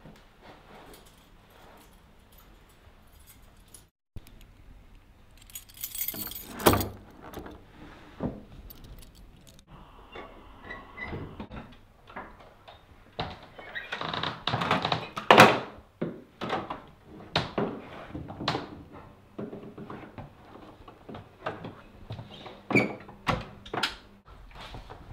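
Keys jangling with a series of knocks and clatters from a door. The busiest stretch is about halfway through, and single knocks follow at intervals.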